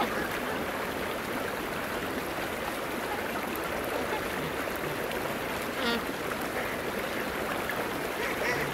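Steady rushing of running water, with a single short duck call about six seconds in.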